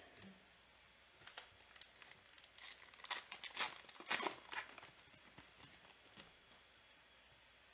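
Foil wrapper of a football trading-card pack being torn open and crinkled by hand. It gives a run of short crackling tears over a few seconds, the loudest about four seconds in.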